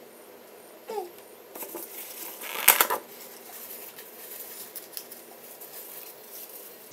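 Tissue paper being pulled and rustled, then crackling in her hands as she wipes her fingers. The rustle is loudest about two and a half to three seconds in and thins to scattered crackles after that.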